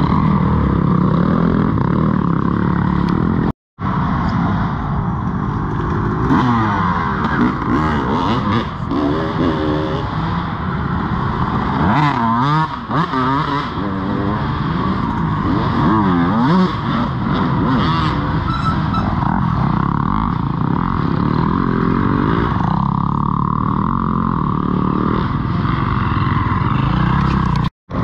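Dirt bike engines revving, the pitch rising and falling again and again as the throttle opens and closes. The sound cuts out for a moment about four seconds in and again near the end.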